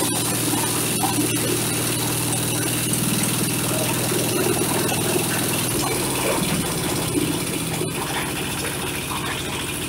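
Single-cylinder diesel engine running a corn husker-sheller machine with a steady drone. About halfway through, its pitch drops and it runs a little quieter, as if the engine is being throttled down.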